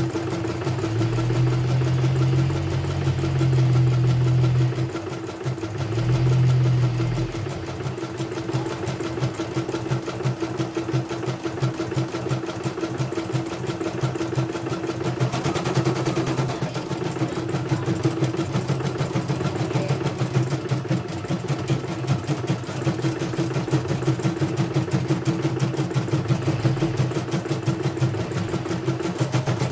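Computerized embroidery machine stitching a test design, its needle striking in rapid, even strokes. A deeper hum runs under the stitching for the first several seconds.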